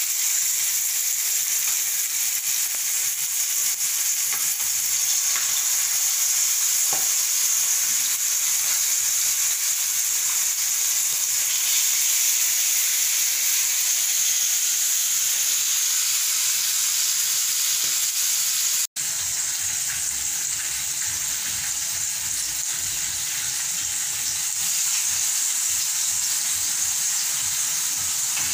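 Chicken pieces frying in hot oil with curry powder in a pan: a steady, loud sizzle, with a brief cut-out about two-thirds of the way through.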